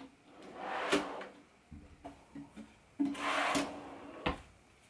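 Wooden drawers in a built-in closet sliding along their runners and knocking shut, twice.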